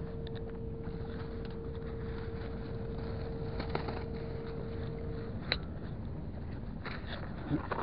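A black plastic bag and small fishing gear being handled, with rustling and a few sharp clicks, the sharpest about five and a half seconds in, over a steady low rumble. A thin steady hum stops about five seconds in.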